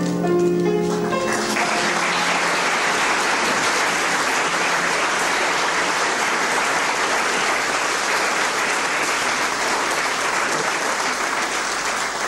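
Live theatre audience applauding steadily. A closing phrase of music fades out about a second in as the applause takes over.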